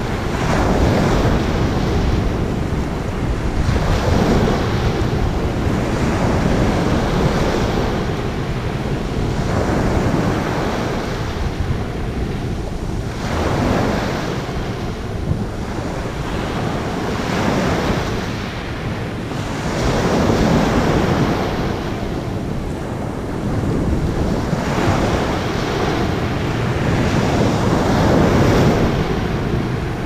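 Small sea waves breaking and washing up over a pebble beach in a continuous rushing surf that swells every three to five seconds as each wave comes in.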